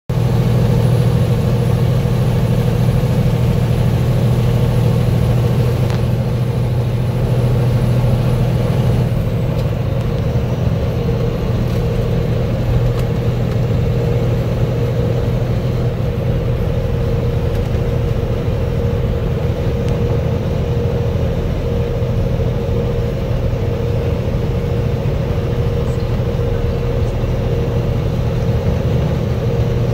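Steady drone of a semi-truck's diesel engine and road noise heard from inside the cab at highway speed, a constant low hum.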